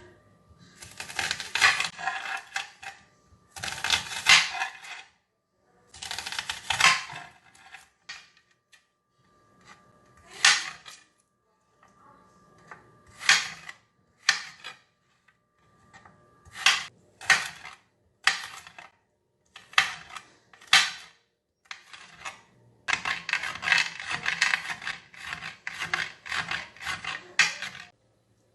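Kitchen food-prep noises: rubbing and scraping strokes in bursts a second or two long, single short strokes in between, and a dense run of strokes near the end.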